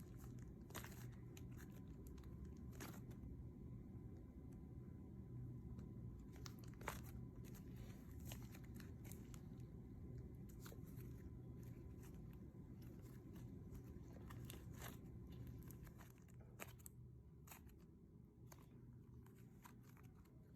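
Faint, irregular little crackles and clicks of clear-glue slime being squeezed and pulled by hand, over a low steady hum; the crackles thin out near the end.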